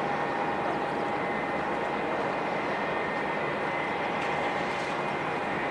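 Steady jet airliner engine noise with a constant high whine over a rushing hiss.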